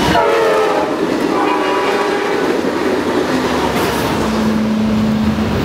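A train passing close by with its horn sounding, the horn notes falling in pitch as it goes by, over wheels clacking on the rails. A steady single tone comes in about four seconds in.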